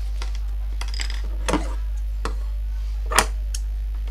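Tailoring tools handled on a stone worktable: several scattered light clicks and knocks as the ruler and pencil are put down and the large tailor's shears are picked up. The loudest knock comes about three seconds in, over a steady low hum.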